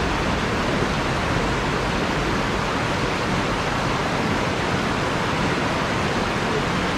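Steady rush of river water pouring over a weir and tumbling over rocks.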